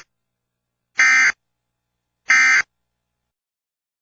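Emergency Alert System end-of-message signal: short bursts of SAME digital data, each about a third of a second and about 1.3 s apart. The tail of one burst comes right at the start and two full bursts follow, marking the end of the alert.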